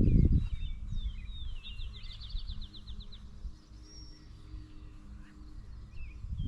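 Songbirds calling in woodland: short chirps and whistles, with a rapid trill of about a dozen quick notes about two seconds in. A low rumble of wind on the microphone runs underneath, with a loud low thump right at the start.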